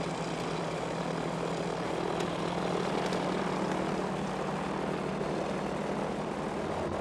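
Radial piston engine of a WWII torpedo bomber running steadily on the ground with its propeller turning, giving an even drone. A deeper hum comes in near the end.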